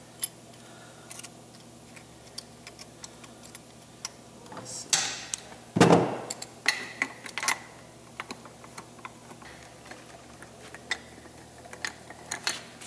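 Scattered small metallic clicks and taps of bolts being started by hand into a 4R55E automatic transmission case, with one louder clunk a little before six seconds in.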